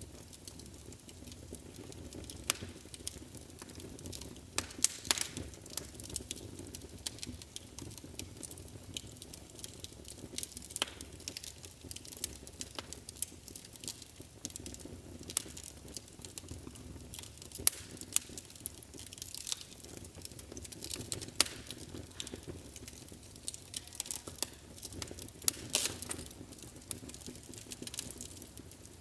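Wood fire burning in a fireplace: irregular sharp crackles and pops, some much louder than the rest, over a low steady rumble of the flames.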